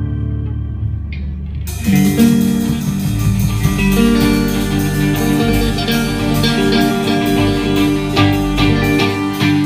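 A band rehearsing: a held organ-like chord, then about two seconds in the full band comes in loud, with guitar and sharp regular hits.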